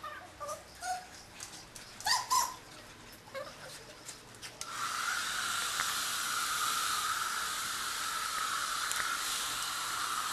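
A young dog whimpering and yipping in short high squeaks, with a few clicks. About four and a half seconds in, a hair dryer switches on and runs with a steady hiss and a high hum.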